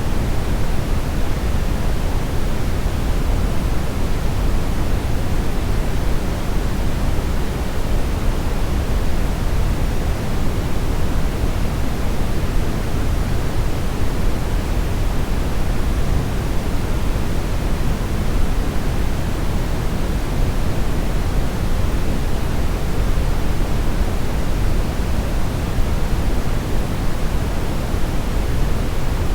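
Steady synthetic brownish noise: an even, unbroken rushing hiss weighted toward the low end, with no changes or events.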